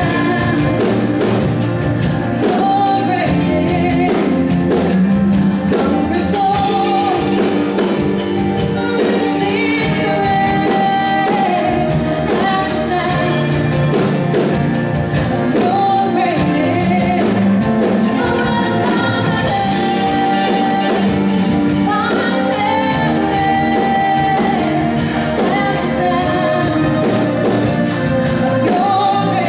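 A live contemporary worship band plays a song. Female vocals are sung over electric guitars, keyboards, bass and a drum kit.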